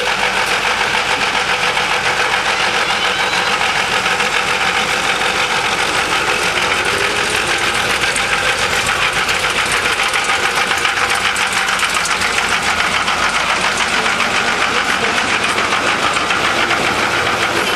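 A small park-railway locomotive built to look like the Adler pulling its train of open carriages past at close range: a steady, fast mechanical knocking from the engine and running gear, with the carriage wheels rolling on the rails as the cars go by.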